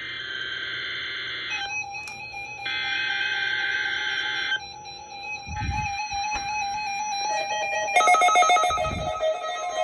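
NOAA Weather Radio Emergency Alert System test: the SAME digital header sent three times, bursts of harsh, screechy data tones with short gaps between them. A steady lower tone runs underneath from about two seconds in, and a different set of steady tones takes over near the end.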